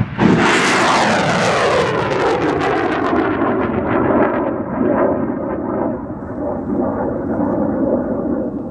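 Rocket launcher firing: a sharp blast right at the start, then the rocket's loud rushing roar. Its pitch falls steadily as it flies away, and the roar slowly thins and fades.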